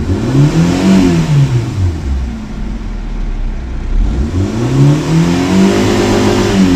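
Hyundai i10's 1.1-litre four-cylinder petrol engine, blipped twice from idle; each rev climbs and falls back over about two seconds. The engine has active misfire codes on cylinders 1 and 4.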